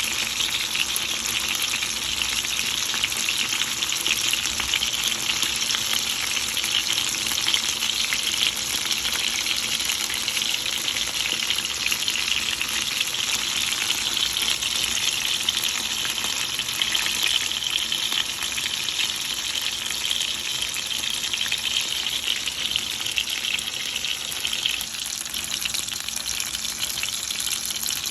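Food frying in hot oil in a pan: a steady sizzle full of fine crackles, easing slightly near the end.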